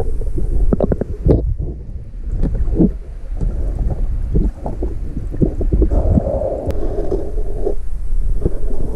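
Muffled underwater sound of a free-diver spearfishing in a river: a heavy low rumble from the camera housing moving through the water, with irregular bubbling clicks and knocks.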